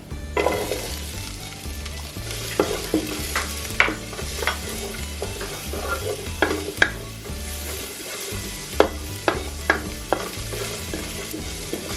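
Diced onions and minced garlic sizzling in hot oil in a pan as they are sautéed and stirred, with the stirring utensil knocking against the pan about a dozen times.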